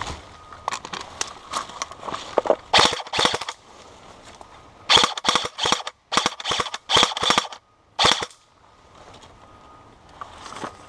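Airsoft guns firing several short bursts of rapid shots, with pauses between the bursts; the bursts come thicker in the second half.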